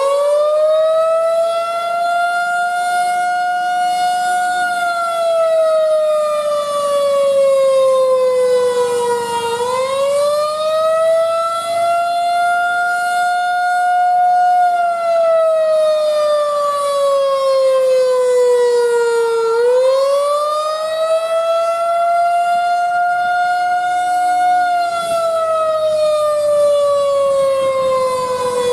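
Federal Signal 2001-130 rotating outdoor warning siren sounding a wail for a siren test. Its loud single tone climbs quickly, holds for a few seconds, then slides slowly down, repeating about every ten seconds.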